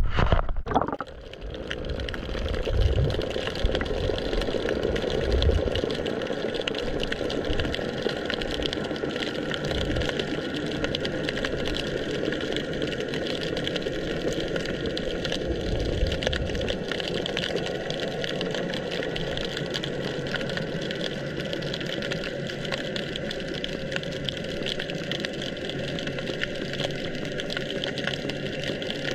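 Underwater noise picked up by a camera lowered into the bay: a steady dense hiss with fine crackling, and a few low thuds in the first seconds and again around the middle.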